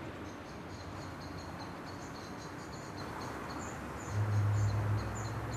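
Quiet background ambience with high chirping, like insects, repeating about four times a second. About four seconds in, a low steady hum sets in and becomes the loudest sound.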